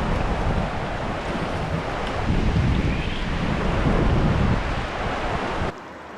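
Wind buffeting the microphone in gusts over the rush of river water. Near the end it cuts off abruptly, leaving a quieter steady hiss of flowing water.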